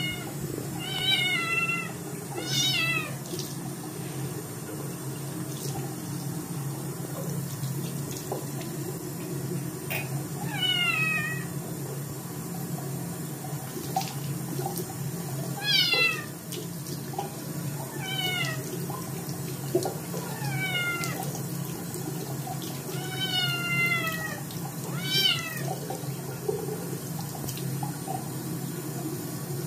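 Scottish Fold kitten meowing loudly, about nine short meows that fall in pitch, spaced irregularly, as it protests having its paws bathed. A mixer tap runs steadily under the meows.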